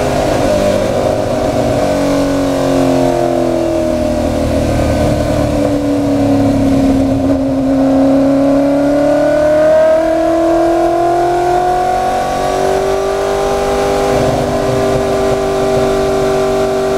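In-car sound of a Ford Mustang V8 race car on track: the engine note sinks slowly as the car slows for a corner, then climbs as it accelerates out. The pitch drops a step at an upshift about ten seconds in, climbs again, then holds fairly steady.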